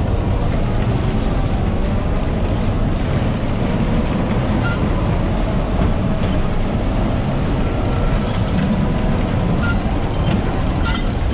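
Electric bumper car driving across the ride's metal floor: a steady low rumble of wheels and motor, with a brief click near the end.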